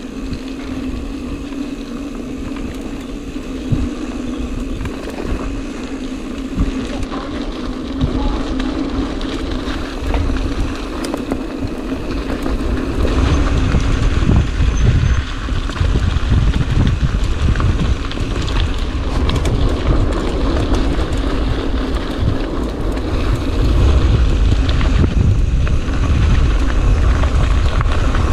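Mountain bike being ridden: a steady tyre hum with scattered rattles and clicks, and wind rumbling on the microphone that grows louder from about halfway.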